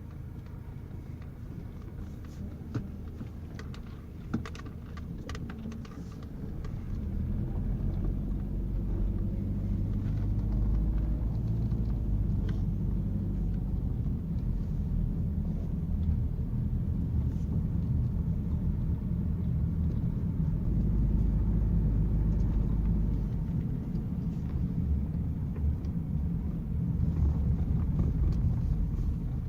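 A motor vehicle's engine running steadily with a low rumble, growing louder about six seconds in, with a few sharp clicks in the first seconds.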